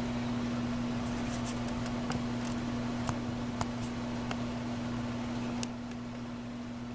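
Light clicks and taps of a phone being handled and its buttons pressed while it powers on, about a dozen faint ticks with one sharper click about five and a half seconds in, over a steady low electrical hum.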